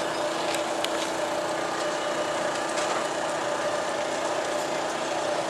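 A steady machine hum holding two even tones, one low and one an octave above, over a noisy background with a few faint clicks.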